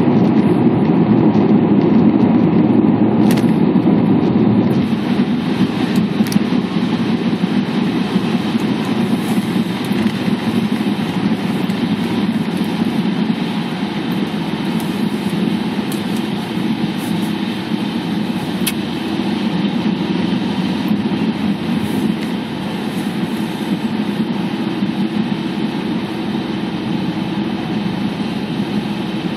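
Inside a moving car's cabin: steady road and tyre rumble with the engine running underneath, easing a little in level about five seconds in.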